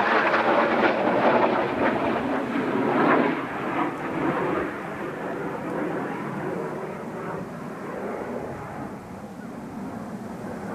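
Jet noise of Kawasaki T-4 trainers after a low pass, rumbling away and fading steadily over about ten seconds.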